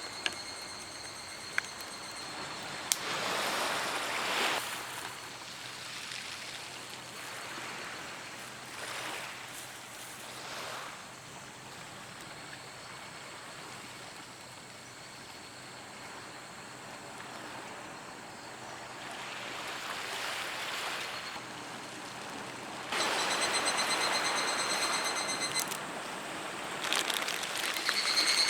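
Waves washing on the shore, a steady wash of noise that swells every couple of seconds. Near the end a louder hiss with a thin high whine comes in for a few seconds.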